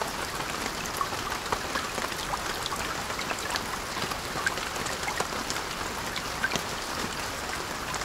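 Steady rush of water with many scattered drips and small splashes, cutting off suddenly at the end.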